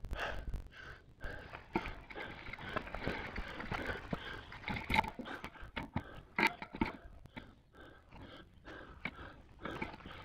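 Indistinct vocal sounds from a person: breaths, grunts and low murmurs coming in short, uneven snatches.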